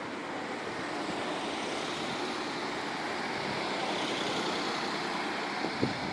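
Steady rushing background noise of an outdoor fireworks display, with one dull thump near the end, typical of a distant firework bursting.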